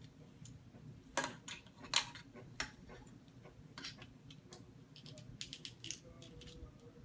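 Irregular sharp clicks and snaps of a plastic transforming robot toy's parts being moved and fitted into place by hand, with a cluster of quicker clicks near the end.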